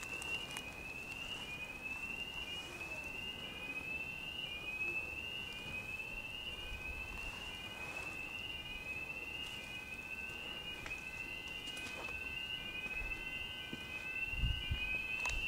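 Electronic building fire alarm sounding: a short rising whoop repeated about every 0.7 s, with a steady tone underneath. A few sharp cracks and a low thump near the end break through it.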